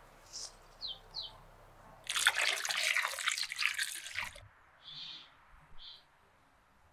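Water poured from a jug onto bell peppers in a stainless steel bowl, splashing for about two seconds. Short high bird chirps come before and after the pour.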